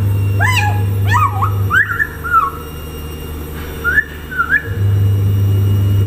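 Pet Amazon parrot giving a quick run of short whistled calls that rise and fall in pitch over the first two seconds or so, then a few more about four seconds in. Underneath runs a steady low hum that drops out for about three seconds in the middle.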